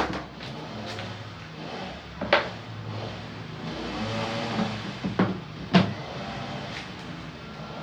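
Sharp twin-tub washing machine running with a steady low motor hum, broken by several sharp knocks and clacks, about four in all.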